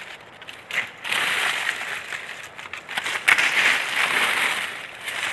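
Dry leaves and undergrowth rustling and crunching in two long stretches, as plants are handled and trodden on, with a few sharp crackles of twigs.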